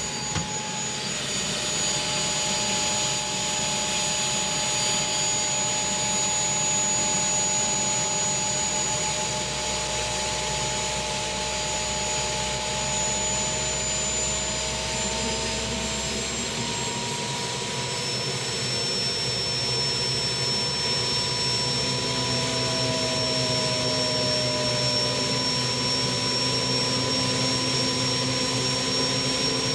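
Steady whining machine noise: a continuous hiss with several high whining tones that drift slightly in pitch, over a low rumble that drops away about halfway through.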